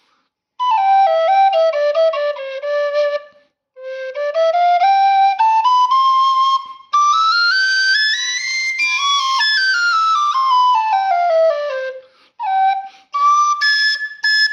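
A plastic khlui, the Thai vertical duct flute, played in scale runs: a run stepping down, then a long run stepping up into the high register and back down, then a few short notes near the end.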